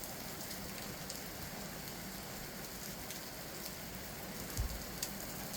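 Heavy rain pouring down: a steady hiss with scattered faint drip ticks, and one soft low thump about four and a half seconds in.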